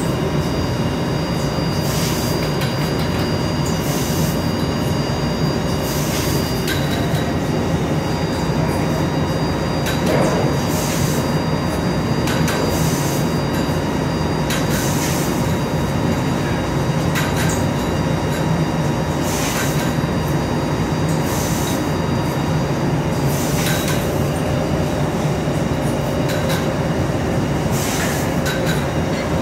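Fiber laser cutting machine running as it cuts 24-gauge stainless steel sheet: a steady low mechanical hum with faint steady tones, broken every few seconds by short hissing bursts.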